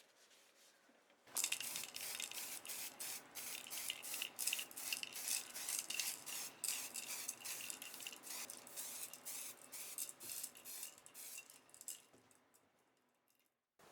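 Electric arc welding: a steep-onset, dense sizzling crackle as the arc is struck about a second in. It holds steady, then tapers and breaks off near the end.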